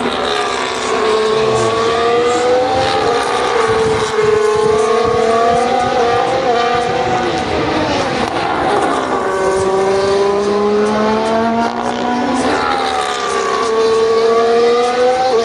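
Formula One cars' turbocharged V6 engines going past one after another at high revs, the engine pitch sweeping down and back up with each car as it goes by.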